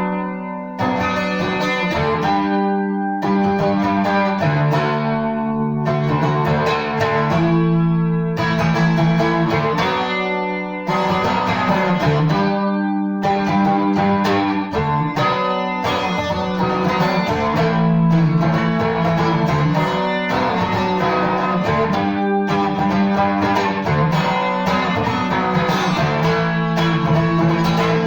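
Seagull Merlin M4, a four-string dulcimer-style acoustic instrument, played solo: a plucked and strummed melody over steady low drone notes.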